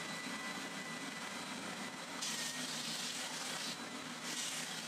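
Triton oscillating spindle and belt sander running with its sanding belt fitted: a steady motor whine over a hiss. Twice, about two seconds in and again near the end, a brighter, harsher hiss joins it as wood is pressed against the moving belt.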